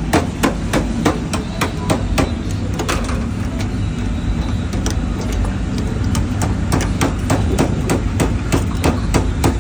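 Repeated sharp taps of a hand tool chipping and scraping at burnt residue inside a commercial induction cooker, about three strikes a second, over a steady low rumble. The residue is left where water leaking through the cracked glass top burnt the parts below, and has to be scraped clean before the repair.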